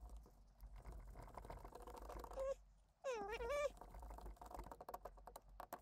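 Faint clicks and taps of a hand driver working on a 1/10-scale RC truck's rear hub and dogbone. A short, wavering high-pitched whine comes twice in the middle, the second one longer and the loudest sound.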